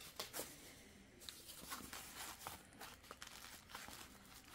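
Faint crinkling and irregular light crackles of plastic wrap and a styrofoam packing insert being handled as a figurine is packed into the foam.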